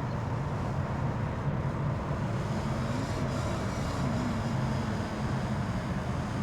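Radio-controlled racing boat engines running after being started, a steady engine drone with a brief rise and fall in pitch around the middle.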